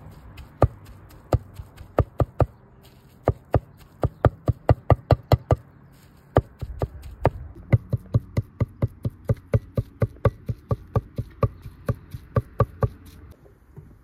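Cleaver chopping balls of cooked wild greens on a wooden chopping block: sharp knocks, scattered at first, then quick runs of about four to five a second with a short pause midway, stopping shortly before the end.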